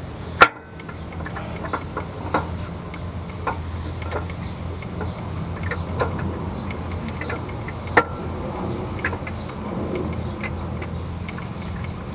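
Camshaft of a 5.3 L LS V8 being drawn out of the block by hand, its lobes and journals clinking and scraping against the cam bearings, in irregular short metallic clicks. A sharp click about half a second in is the loudest, with another strong one near eight seconds, over a steady low hum.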